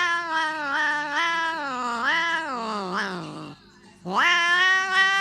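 A cat yowling in long, drawn-out wavering calls: one falls in pitch and breaks off about three and a half seconds in, and after a short gap another rises in and carries on.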